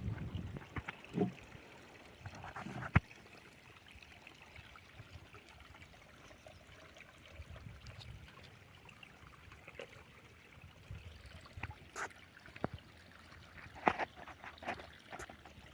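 Quiet background with scattered light clicks and knocks: a sharp one about three seconds in and a small cluster near the end.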